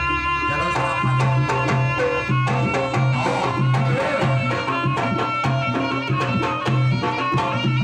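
Jaranan music from a live gamelan-style ensemble, played through loudspeakers: fast hand-drum strokes over a low pulse about once a second, with pitched melody lines above.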